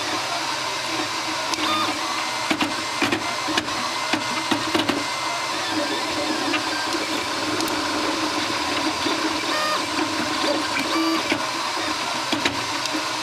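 FlashForge Dreamer 3D printer running, its motors making a steady whine, broken by sharp clunks: several in quick succession in the first few seconds and a few more near the end.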